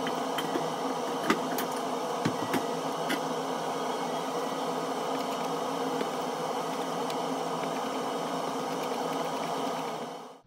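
Steady hum and hiss of a frying pan cooking on an induction hob, with a few light clicks in the first few seconds, as a wooden spatula stirs prawns in the salted egg yolk and butter sauce.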